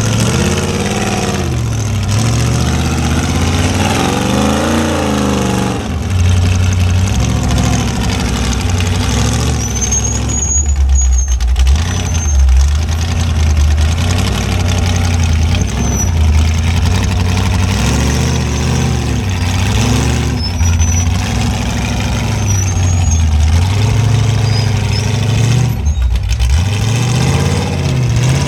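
Off-road rock-crawling rig's engine idling and revving in repeated short rises and falls as it works over rocks. A few brief high squeaks come in around the middle.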